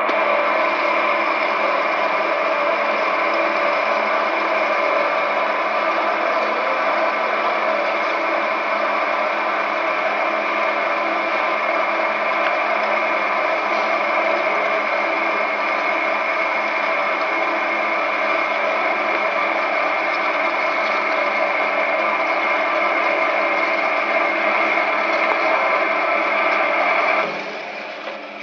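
Hydraulic auto-feed drilling machine with a 4-spindle drilling head running through a drilling cycle: a loud, steady high whine over grinding noise. It drops off suddenly near the end.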